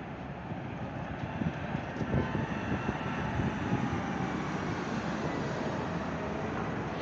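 City street traffic, with a vehicle's engine and tyre noise swelling about two seconds in as it passes close, then holding steady.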